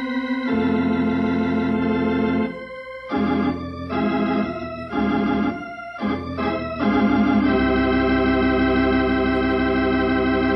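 Organ music cue closing the radio drama's final scene: a run of sustained organ chords changing every second or two, ending on a long held chord that stops near the end.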